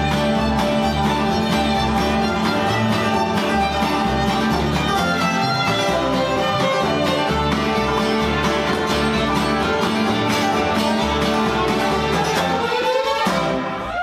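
Live bluegrass band playing: banjo, fiddle, acoustic guitars and upright bass, with the fiddle prominent. The music stops suddenly near the end.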